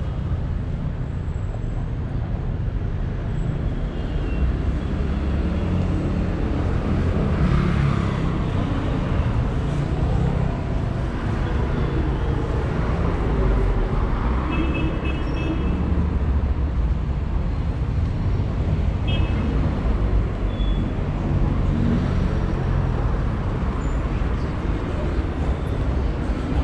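City street traffic: cars passing steadily on the road alongside the sidewalk, a continuous low rumble of engines and tyres. A few short high tones sound about halfway through.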